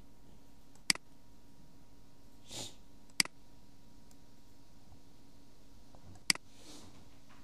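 Three sharp computer-mouse clicks, two to three seconds apart, each with a fainter second tick right after as the button is released. There is a soft sniff between the first two clicks and another just after the last, over a low steady hum.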